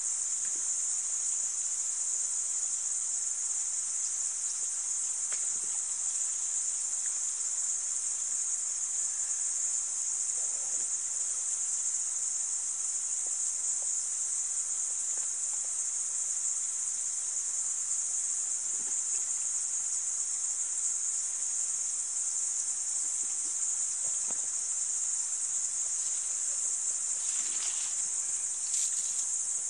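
Steady, high-pitched insect chorus droning without a break, with a couple of brief faint sounds near the end.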